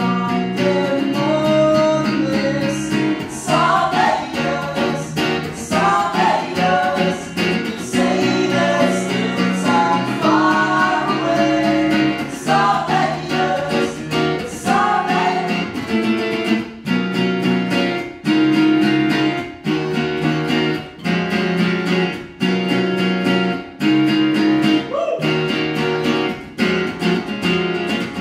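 Live acoustic band playing a song: acoustic guitar, electric guitar and upright piano playing chords together, with a voice singing a melody over them.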